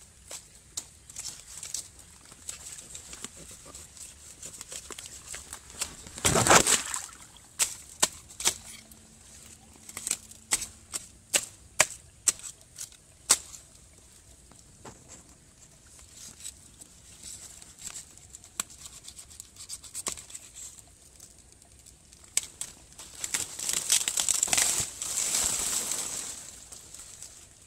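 Cutting and handling of spiny lasia stems in undergrowth: scattered sharp clicks and snaps of a knife and breaking stems among rustling leaves and grass. There is a loud rustling burst about six seconds in and a longer rustle of foliage near the end.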